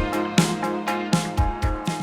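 Instrumental music with a steady beat: sustained pitched tones under regular drum hits.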